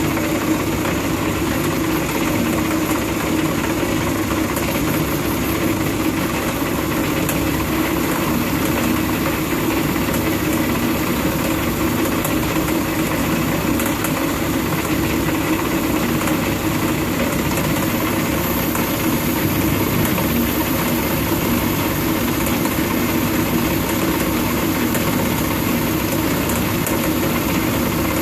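Worn old metal lathe running steadily under power, its tired gearbox and spindle bearings making a constant rumble, while a high-speed-steel vertical shear tool takes a light finishing cut on hot-rolled steel bar.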